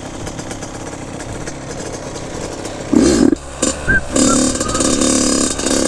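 Dirt bike engine ticking over quietly, then revved hard about three seconds in and held at higher revs through the rest.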